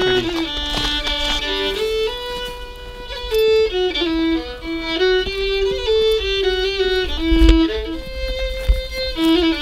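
Background music: a fiddle playing a melody, its notes stepping up and down.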